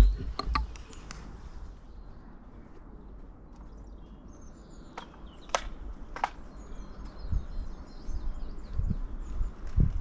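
Outdoor field ambience with small birds chirping faintly, three sharp clicks about five to six seconds in, and a few low thumps near the end.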